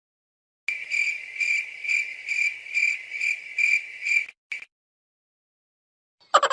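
Cricket chirping sound effect: a high trilled chirp repeating about twice a second for roughly three and a half seconds, then stopping. Another cartoon sound effect starts right at the end.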